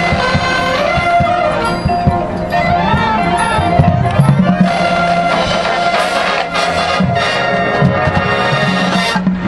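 High school marching band playing a field show: brass holding and moving through sustained chords over a steady beat of drums and percussion.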